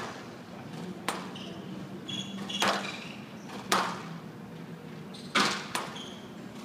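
Squash ball cracking off racquets and the walls of a glass court during a rally, sharp hits about once a second with a quick double hit near the end, and short high squeaks of shoes on the court floor between them.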